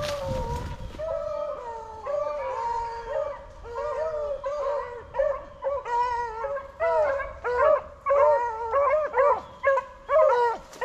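A pack of beagles baying and howling as they run a rabbit's scent trail, several dogs calling over one another. The calls come faster and louder from about halfway through.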